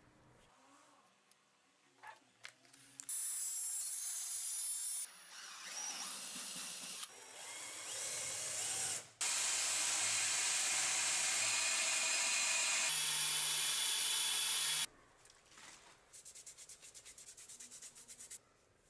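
Belt grinder sanding a wooden knife handle scale, in several runs that start and stop abruptly, the longest about six seconds. Near the end, quick rhythmic rubbing of a cloth over the parts.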